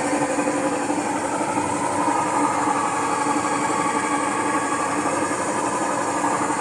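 Electrolux LTC 10 washing machine spinning with a loud, steady mechanical drone: a noise diagnosed as a failing gearbox (câmbio).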